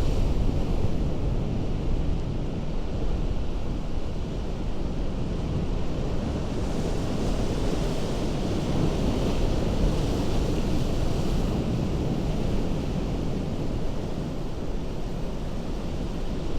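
Ocean surf breaking and washing against a rocky shore: a steady rush of water that swells a little about halfway through, with wind rumbling on the microphone.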